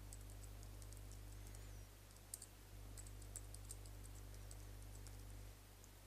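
Faint computer keyboard typing: a run of soft, irregular key clicks over a low steady hum that drops out briefly about two seconds in and again near the end.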